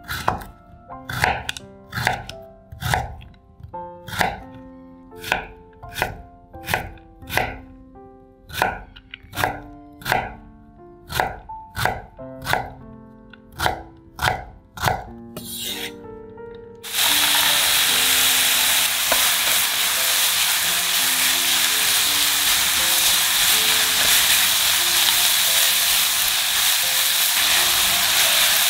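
Chef's knife chopping carrot on a wooden cutting board in a steady run of sharp strikes. About 17 seconds in, it switches abruptly to a steady sizzle of diced carrot and chicken breast frying in oil in a pan.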